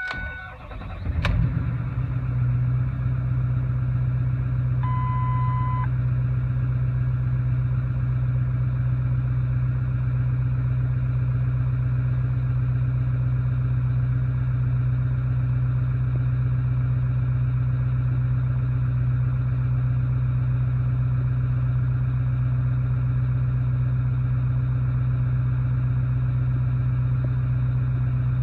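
2008 Ford F-250's 6.4-litre Powerstroke V8 diesel cranking and catching about a second in, then idling steadily. A short dash beep sounds about five seconds in.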